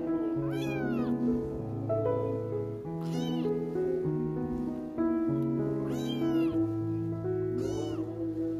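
A kitten meowing four times, each meow about half a second long, rising then falling in pitch, over background music with long held notes.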